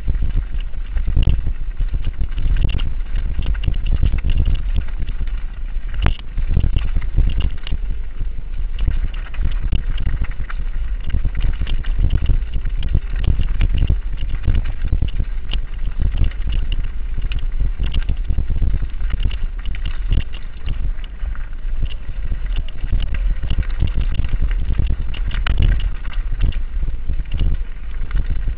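Giant Reign full-suspension mountain bike ridden fast down a rocky dirt singletrack: constant rattling, clacking and knocking of the bike over stones and roots, tyres on loose gravel, over a heavy wind rumble on the GoPro's microphone.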